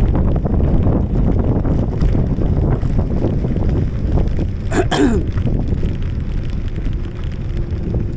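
Wind buffeting the microphone of a moving bicycle, a steady rumble. A brief squeak comes about five seconds in, and a faint steady hum starts near the end.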